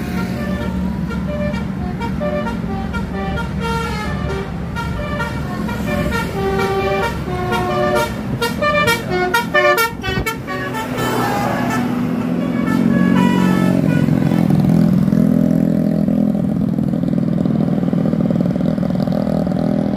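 Tour bus telolet basuri horn playing a tune of short notes that step up and down in pitch, coming quicker about eight seconds in. After the tune stops, about halfway through, the bus's engine grows loud as the bus passes.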